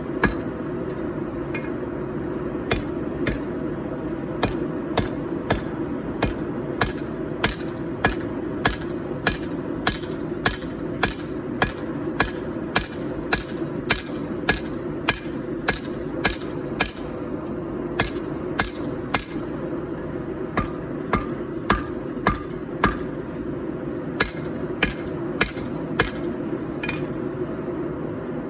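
A hand hammer striking hot 4140 steel on an anvil, drawing out a knife blade in an even rhythm of about one and a half blows a second. Under the blows runs the steady rushing of the gas forge.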